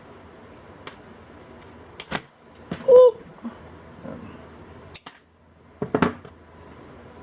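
Carlyle crimper/stripper pliers clicking and snapping shut several times, likely cutting wire. A short pitched sound about three seconds in is the loudest moment.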